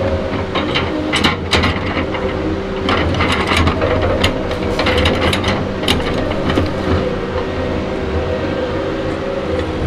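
Tigercat 234B knuckleboom log loader's diesel engine running steadily while its grapple works the log deck. A run of sharp wooden knocks and clacks sounds over the first seven seconds or so as the grapple takes hold of the logs and they shift against each other, then grows sparse.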